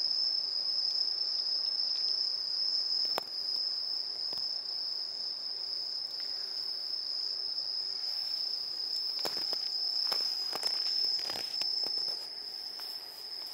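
Crickets trilling in one steady, unbroken high-pitched drone, with a few soft clicks and taps in the last few seconds.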